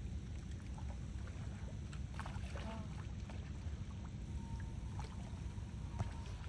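A steady low rumble with faint scattered clicks.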